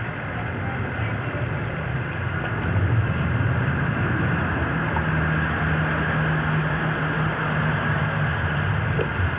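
Steady low engine rumble and hum, like a vehicle running, a little louder from about three seconds in.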